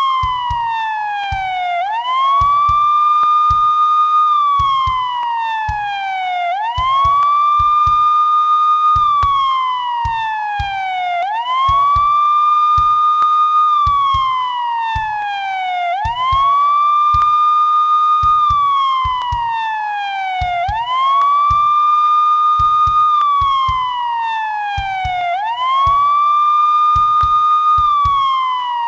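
Police siren in a slow wail: each cycle the pitch rises quickly, holds high for about two seconds, then falls slowly. The cycle repeats about every four and a half seconds, six times over.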